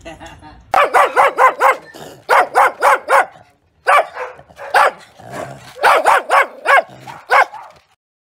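A small dog barking sharply in quick runs of four or five barks, with single barks in between, from a rescue dog described as a fear biter. The barking stops shortly before the end.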